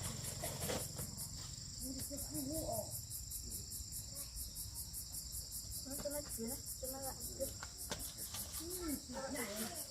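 Insects chirring in a steady high-pitched chorus with a fast, even pulse. Faint voices can be heard behind it now and then.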